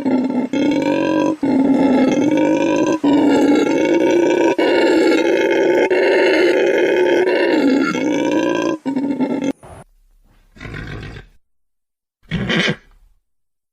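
A large wild animal's call: one long, drawn-out call of about nine and a half seconds, broken by a few brief gaps, then two short calls near the end.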